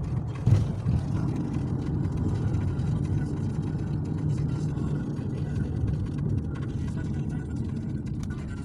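Car on the move: steady engine and road noise, with a brief knock about half a second in.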